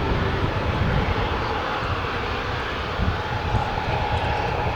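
Jet engines of a Boeing 767-300 airliner running on the runway, a steady, loud rumble with hiss.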